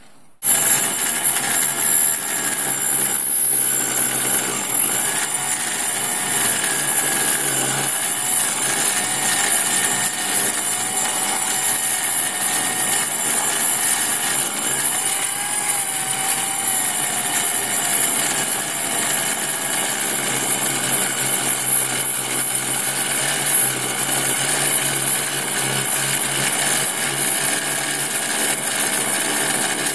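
Electric drill running a DeWalt diamond-impregnated core bit that grinds through house brick. A steady motor whine with grinding starts abruptly about half a second in and holds on.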